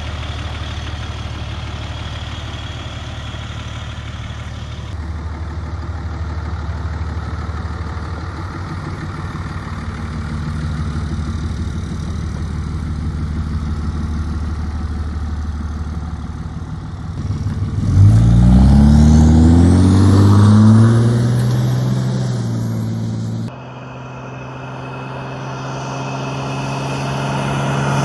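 Pickup truck engine towing a shipping container on saddle axles, heard across several edited clips: running steadily at first, then revving up with a rising pitch a little past halfway. Near the end the truck and container approach on the highway, growing louder.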